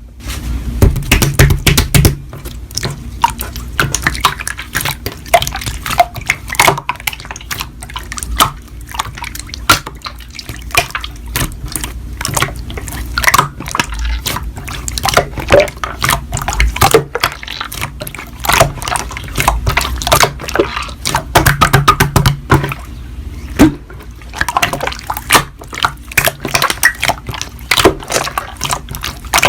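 Slime being played with by hand: a dense, irregular run of wet clicks, pops and squishes.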